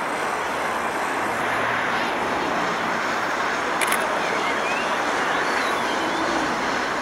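LNER Peppercorn A1 three-cylinder Pacific steam locomotive 60163 Tornado working hard as it accelerates a train. Its exhaust and running gear make a steady, continuous rush of noise.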